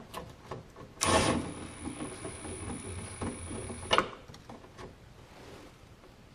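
Cordless power ratchet on a long socket extension running for about three seconds, a steady motor whine, backing out a 10 mm screw. It starts suddenly and stops with a click, with a few light clicks of the socket before it.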